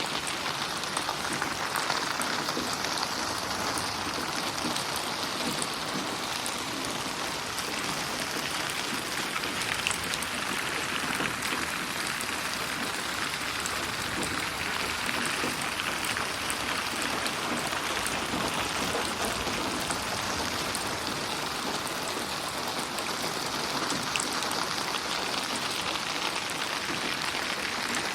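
Steady rain falling, with scattered drop ticks, processed as 8D audio so that it swells and fades slowly as it pans around the listener.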